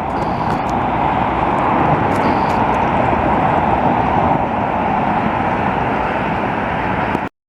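Jet airliner passing overhead, a steady loud engine noise that cuts off suddenly near the end.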